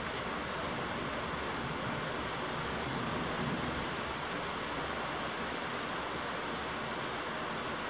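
Heavy rain pouring down in a steady, unbroken rush during a thunderstorm downpour.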